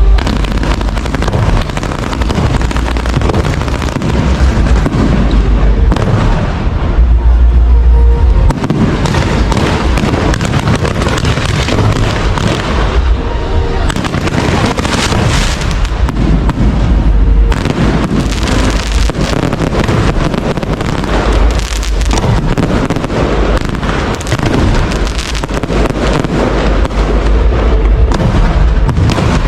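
A dense, unbroken barrage of aerial fireworks, many shells bursting in quick succession so that the booms run into one another.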